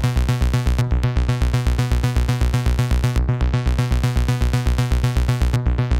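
A single Behringer Neutron analog oscillator holding one steady buzzy note, its raw unmodulated waveform heard through a matrix mixer's summed output, with a fast even throb about seven times a second.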